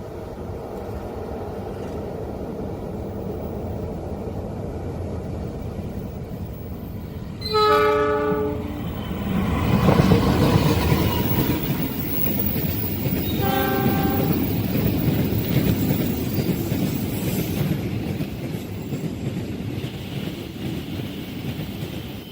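Train horn blown twice: a blast lasting about a second, some seven and a half seconds in, and a shorter one about six seconds later. Between them the rumble and rush of the train on the rails swells loud as it passes and stays loud.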